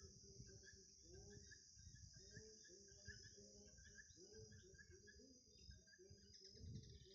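Faint outdoor ambience: a steady high-pitched insect trill, like crickets, over a low rumble and faint, indistinct voices.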